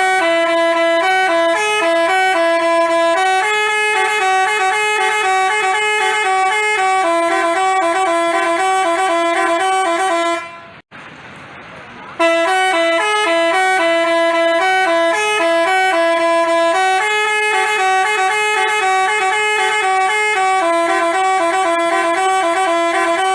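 Basuri telolet bus horn playing a quick tune of stepped, held horn notes. The tune stops briefly about eleven seconds in, then plays through again.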